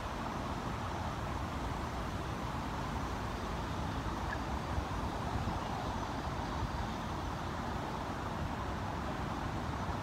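Strong wind buffeting the microphone: a steady, rumbling rush without a break.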